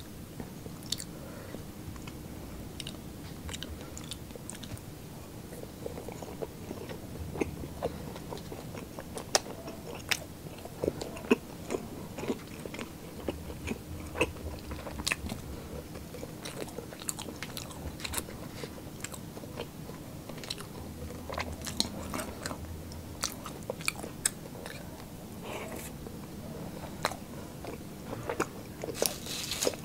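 Close-miked chewing and biting of fried skewered street food, with many short, irregular crunches and mouth clicks that come thicker near the end.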